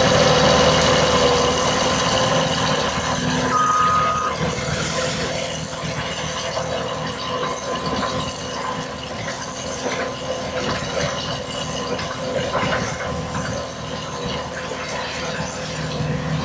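Skid steer loader running with a steady engine and hydraulic drone, working a tree and post puller attachment, with scattered knocks. It is louder for the first few seconds, then settles slightly lower.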